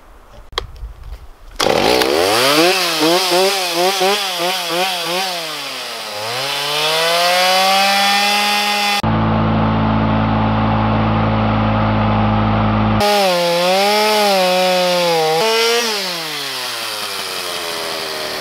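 Two-stroke chainsaw revving up sharply a second and a half in, blipped up and down a few times, then held at high revs cutting into a pine stump root, its pitch wavering under the load. Near the end the revs fall away.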